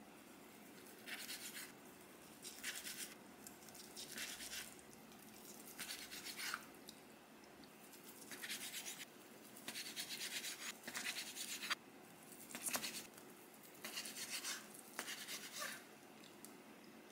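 Kitchen knife slicing through Korean blood sausage (sundae) onto a cutting board: about a dozen short, soft scraping cuts, roughly one a second.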